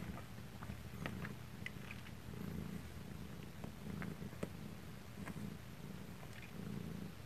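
Quiet, steady purring from a mother cat and her nursing kittens, pulsing slowly in and out, with a few faint clicks.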